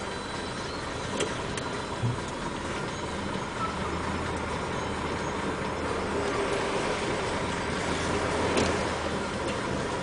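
Crane truck's diesel engine running as it drives slowly, heard from inside the cab: a steady low hum that grows a little stronger about halfway through. There are a few light clicks in the first two seconds and a knock near the end.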